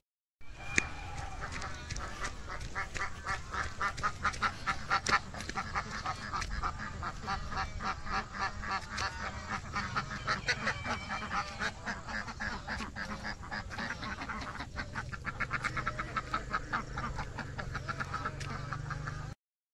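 A duck quacking in long, fast runs of short quacks, several a second.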